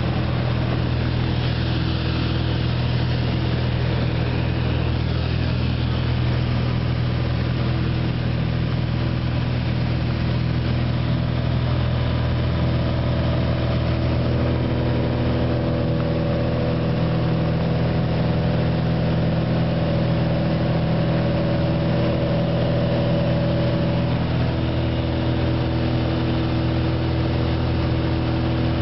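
Light airplane's engine and propeller heard from inside the cabin in flight: a steady, unbroken drone with a strong low hum.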